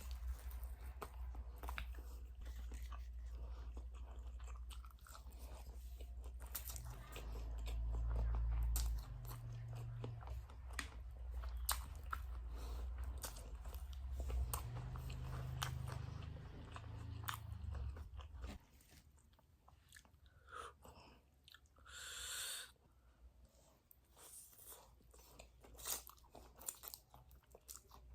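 Close-miked chewing and biting of spicy noodles: wet mouth clicks and crunchy bites, over a low rumble that drops away about two-thirds of the way through.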